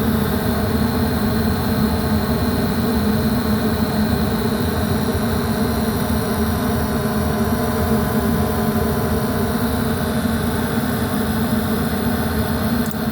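Airtemp 90% gas furnace running with its burners lit, its draft inducer motor giving off a steady, loud mechanical noise with a constant hum: the inducer motor is worn and due for replacement.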